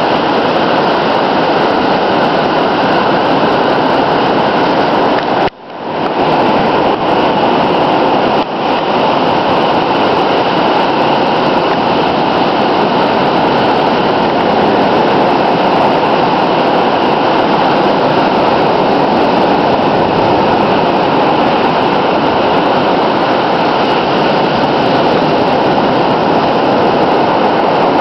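Ocean surf breaking and washing up the beach, a steady, loud roar of waves that briefly cuts out about five and a half seconds in.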